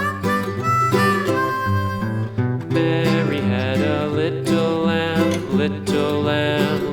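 Instrumental country-style music with acoustic guitar and harmonica.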